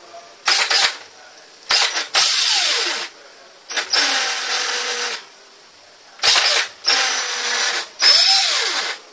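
Electric power drill whirring in repeated stop-start bursts, some short and some over a second long. In a couple of them the pitch rises and then falls as the motor spins up and winds down.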